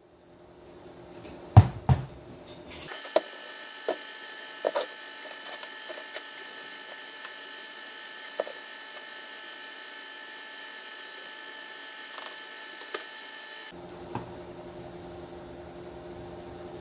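Light knocks and clicks of thin plywood parts, a plastic mixing cup and a glue bottle being handled and set down on a workbench, several in the first five seconds and a few scattered later, over a steady background hum.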